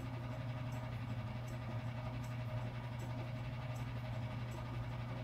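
A steady low hum, with faint soft ticks now and then.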